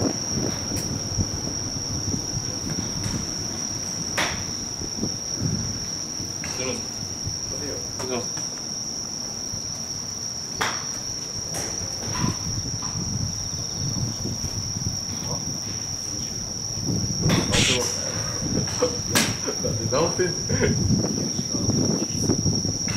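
A steady, high-pitched chorus of crickets chirring without a break. A few sharp clicks stand out now and then, loudest near the end.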